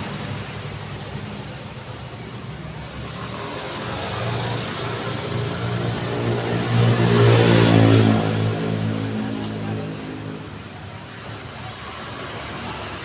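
Road traffic with a motor vehicle passing close: its engine hum grows louder, peaks about halfway through, then fades, over a steady wash of tyre and traffic noise.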